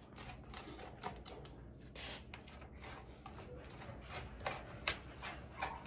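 A spoon stirring dog food in black plastic feed pans: faint, scattered scrapes and light taps against the pans as the food is mixed.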